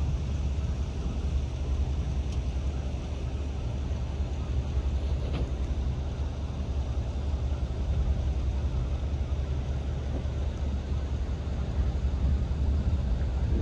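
Steady low outdoor rumble with a faint steady hum above it.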